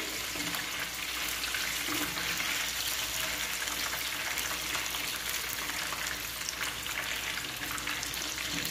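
Breaded chicken nuggets deep-frying in hot oil in a small saucepan, a steady sizzle dotted with fine crackles.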